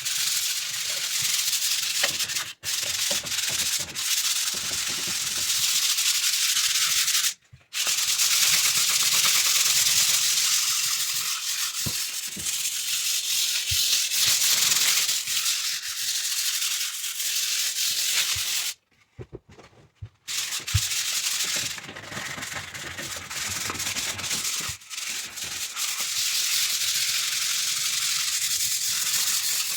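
Sanding dried joint compound on a drywall repair: a continuous scratchy rasp of abrasive on the patch, stopping briefly twice, once for under a second and later for about a second and a half.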